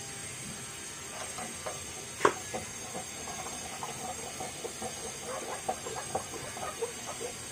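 Car jack lifting the front of a Toyota Avanza / Daihatsu Xenia: a single sharp metallic click about two seconds in, then a run of small irregular clicks and creaks as the body rises, over a steady hiss.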